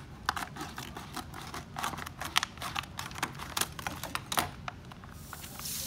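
Scissors snipping through a heat-sealed foil moisture-barrier bag, with quick clicks and foil crinkling. About five seconds in, a steady hiss as air rushes into the sealed bag when it is opened.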